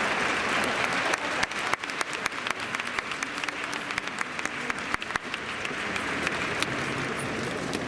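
Football stadium crowd applauding. It starts as a dense wash of clapping, then from about a second in, sharp separate claps stand out over it before it thins out near the end.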